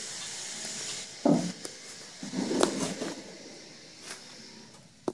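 A galvanised steel pipe being handled on a metal ute tray: a sharp knock about a second in, then a longer rough clattering scrape, and a short click near the end.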